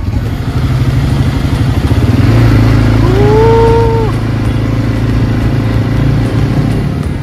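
ATV engine running steadily, growing louder about two seconds in. Over it, about three seconds in, comes one long drawn-out call that rises and then holds for about a second.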